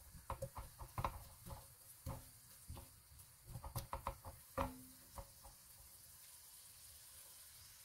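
Wooden spoon tapping and scraping against an enamelled cast-iron pan while stirring chopped leeks in oil: a run of short, quick clicks and knocks that stops about five and a half seconds in, leaving a faint steady hiss.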